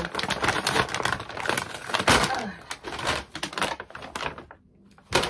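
Brown paper mailer being torn open and handled, a dense crackling rustle with a sharper tear about two seconds in. It stops about four seconds in.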